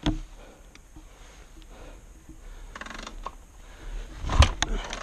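Scattered light clicks and knocks, with a sharp knock at the start and a louder thump about four and a half seconds in; no engine running.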